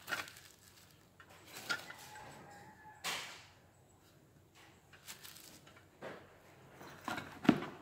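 Bubble wrap crinkling and rustling in short scattered bursts as a plastic-wrapped lamp is handled, with a louder knock near the end as the lamp is put down.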